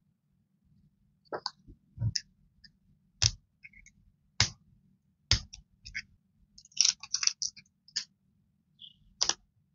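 Rolls of paper masking tape handled on a desk: a string of separate sharp taps and clicks as they are picked up, turned and set down, with a short crackly rustle of tape and plastic about seven seconds in.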